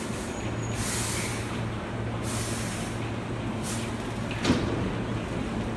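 Hankyu commuter train standing at the platform with a steady low hum from its equipment, broken by several short hisses of air. A single sharp clack about four and a half seconds in is the loudest sound.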